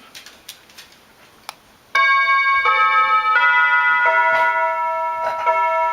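Newly installed doorbell playing a chime tune: a run of held, bell-like notes that change pitch about every 0.7 s, starting about two seconds in. A few faint clicks come before it.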